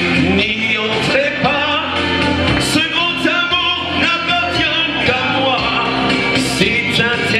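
A live pop song: a man singing into a microphone over an amplified backing track.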